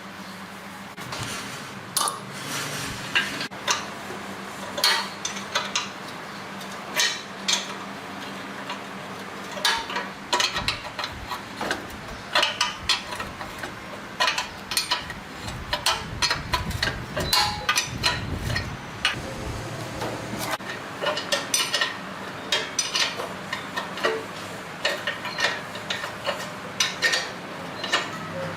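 Irregular metallic clinks and knocks, several a second at times, as tools and small metal engine parts are handled and set down.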